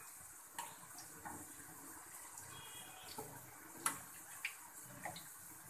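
Hot oil sizzling steadily as rice-flour and jackfruit pitha deep-fry in a pan, with scattered crackles and a few sharper clicks, the sharpest nearly four seconds in.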